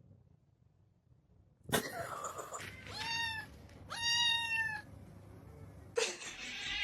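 A sudden sharp knock about two seconds in, then a cat meowing twice, each meow under a second long.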